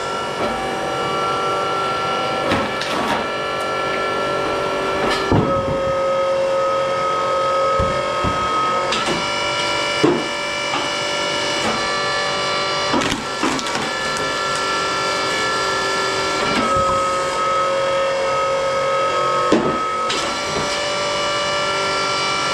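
Electric motor and hydraulic pump of a homemade log splitter running with a steady whine; twice the whine drops slightly in pitch for a few seconds as the pump takes load, about five seconds in and again near the three-quarter mark. Occasional sharp cracks and knocks as logs split on the wedge.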